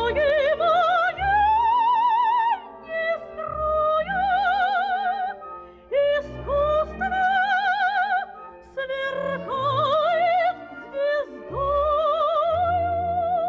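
A woman sings a song from a Soviet operetta film in a trained soprano voice, holding long notes with a strong vibrato. Soft instrumental accompaniment plays underneath.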